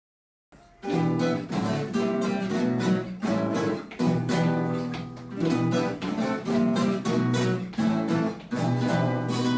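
Acoustic guitar music, strummed, starting after a short silence about a second in.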